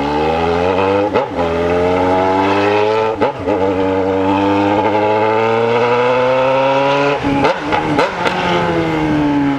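Yamaha XJ6's inline-four engine with a 4-into-1 straight pipe and no muffler, accelerating hard through the gears. The loud exhaust note climbs in pitch, dips briefly at each upshift, then falls away near the end as the throttle closes.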